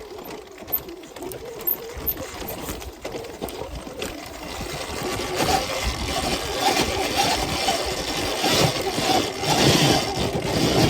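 Sur-Ron Ultra Bee electric dirt bike riding off-road: the electric motor's whine and drivetrain noise, getting louder about halfway through.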